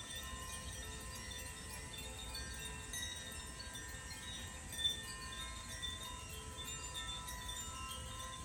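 Tuned wind chimes played by hand, several ringing tones at different pitches overlapping and sustaining, with one brighter strike about five seconds in.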